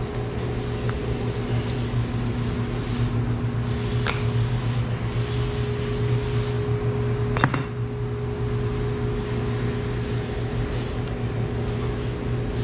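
Steady low electric hum of running workshop machinery, with a light click about four seconds in and a sharper clink about seven seconds in.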